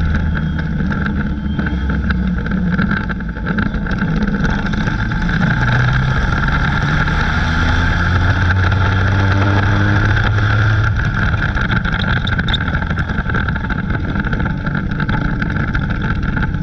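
Dirt-track race car's engine running, heard from inside the cockpit. Its pitch rises about five seconds in as it picks up speed, then eases off again around eleven seconds.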